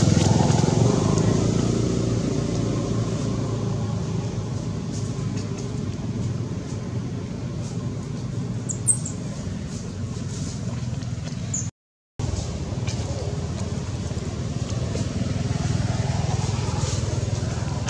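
Low, steady rumble of a motor vehicle engine going by, loudest at first and fading, then growing louder again near the end, cut off for a moment partway through.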